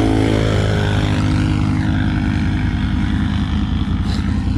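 Can-Am Outlander XMR ATV engine running under way. The engine note climbs briefly at the start and then holds steady, with a steady rush of noise underneath.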